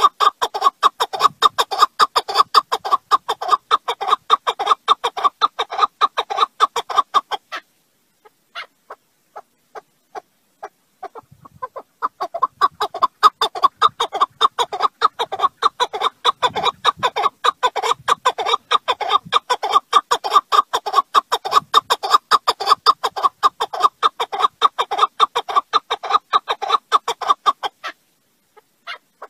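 Partridge calling in long runs of rapid, repeated clucking notes. The runs break off for a few seconds of scattered single notes about a quarter of the way in, and thin out again near the end.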